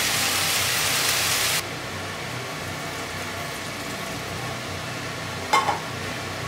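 Vegetables sizzling in olive oil in a frying pan, a steady hiss that cuts off abruptly about a second and a half in. After that only the steady noise of a range hood fan remains, with one brief knock near the end.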